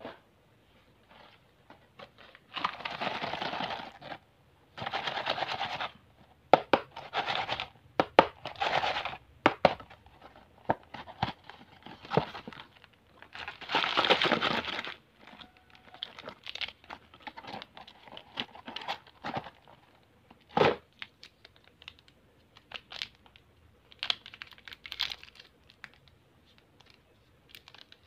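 Candy packaging being torn open and handled by hand: several long ripping tears in the first half, with crinkling and rustling of plastic-wrapped jelly packs between and after them. There is one sharp knock about two-thirds of the way through.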